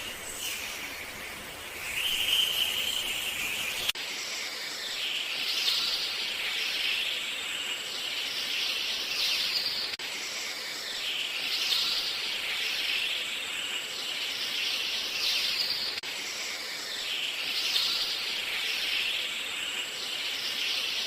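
Outdoor ambience of birds chirping over a steady insect-like hiss, with a pattern that repeats about every six seconds.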